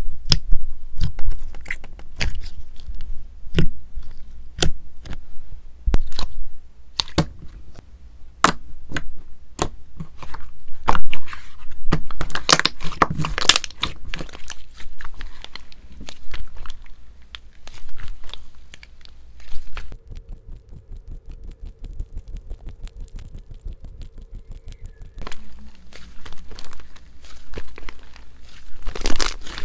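Fluffy white slime being squeezed, poked and stretched by hand: a stream of sharp crackles, pops and squishy air-pocket clicks. It is densest around the middle and goes quieter for a few seconds past the middle before crackling again.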